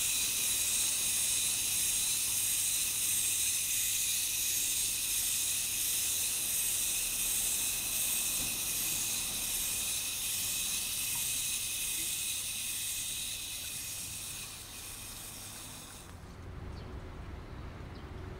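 A steady, high-pitched, shrill hiss of an insect chorus, which cuts off suddenly near the end and gives way to a quieter low hum.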